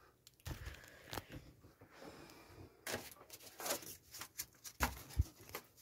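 Faint handling noise: scattered soft knocks and rustles, with a little hiss around the middle.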